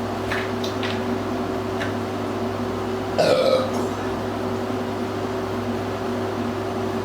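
A single loud burp about three seconds in, lasting under a second, over a steady low background hum.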